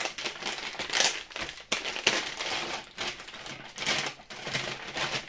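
Clear plastic accessory bag crinkling and rustling as hands pull it open, in irregular bursts of sharp crackles.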